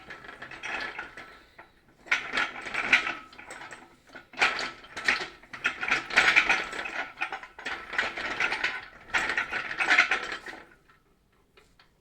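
Engine crane being rolled across a workshop floor in short pushes: its caster wheels rattle and click in several bursts of a second or two each, stopping about a second before the end.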